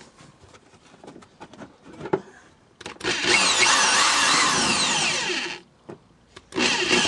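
Power drill boring a hole through the plastic splash guard and the fender piece behind it: a few light clicks of handling, then a run of about three seconds whose pitch falls as it winds down, and a second run starting near the end.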